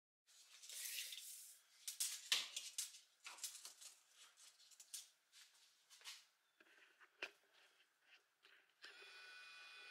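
Steel tape measure pulled out and laid along a tabletop: a quiet sliding hiss, then scattered clicks and taps of the blade and case, and a steady whir for about a second and a half near the end.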